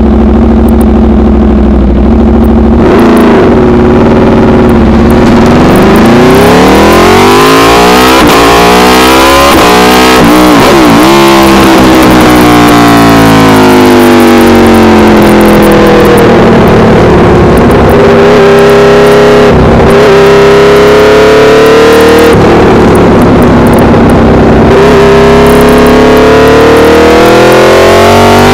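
Aprilia RSV4 Factory's V4 engine through an SC-Project CRT exhaust, heard very loud from a camera on the bike. It runs at a steady low speed at first, then from about three seconds in it revs hard through the gears, the pitch climbing and dropping with short breaks at each gear change.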